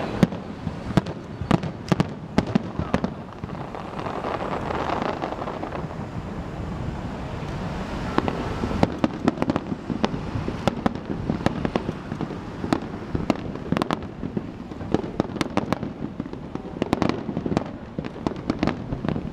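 Aerial firework shells bursting in rapid volleys of sharp bangs and crackles. The bangs thin out for a few seconds about four seconds in, then come thick and fast again.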